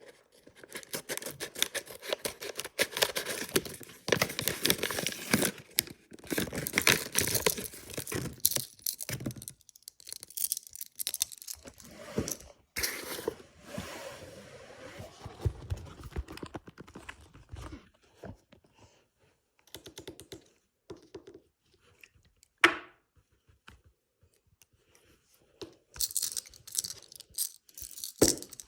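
Paper packaging being crinkled and torn open by hand, in long crackling stretches with quieter pauses and scattered small clicks. One sharp, louder crackle comes about three-quarters of the way through.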